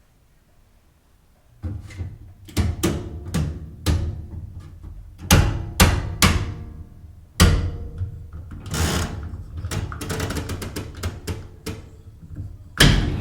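Irregular knocks and clunks of a small washing machine's lid and parts being handled, over a low steady hum, then a loud clunk near the end as water starts rushing in.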